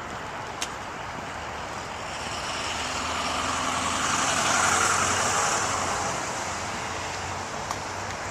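A car passes by on a rain-wet street: its tyre hiss swells for a few seconds and fades away, over a steady rumble of traffic.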